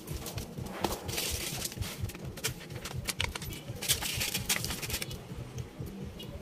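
Crinkling and crackling of foil and paper wrappers being handled, as a foil-wrapped chocolate is unwrapped, dense for about four seconds and then dying away near the end.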